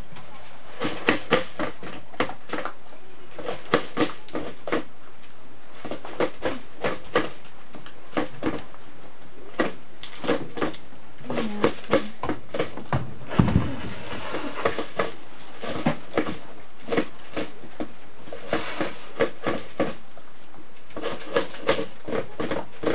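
A dog eating from a plastic slow-feeder bowl: irregular clicks and clatters all through as the food and the bowl knock about and the bowl is nudged along the floor, with one heavier knock a little past the middle.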